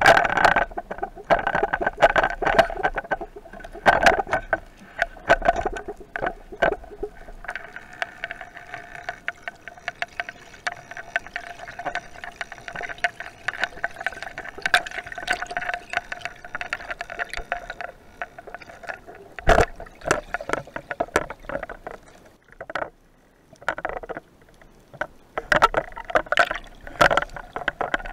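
Irregular clicking and rattling underwater from a loose camera mount bracket, a small fault in the mount, with one louder knock about two-thirds of the way through.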